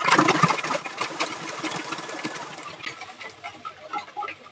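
Food processor crushing ice cubes: a loud rattling, crunching clatter of ice against the blade and plastic bowl that fades over about three seconds, followed by a few scattered clicks.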